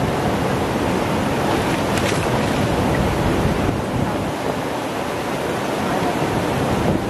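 Choppy river water washing steadily against rocks, with wind on the microphone.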